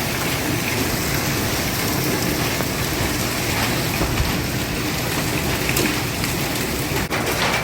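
Heavy rain mixed with hail pelting hard surfaces in a dense, steady patter, with scattered sharper ticks of hailstones.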